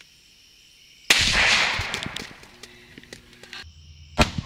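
A single gunshot from a deer-hunting gun fired at a whitetail buck, about a second in, loud and echoing away over more than a second. Crickets chirp steadily before it, and another sharp crack comes near the end.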